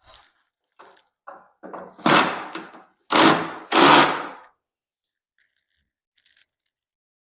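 Several knocks and thuds of hardware and wood being handled while fitting a hose reel to its wooden mount, a few light ones, then two loud heavier ones about two and three seconds in.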